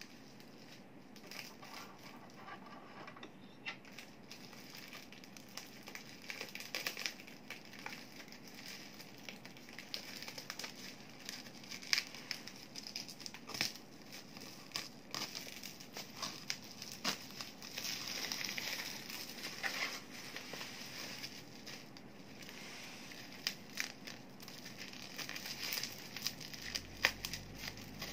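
Bubble wrap and packing tape on a cardboard box being handled and picked at: irregular crinkling with many sharp crackles. Near the end, scissors cut into the bubble wrap.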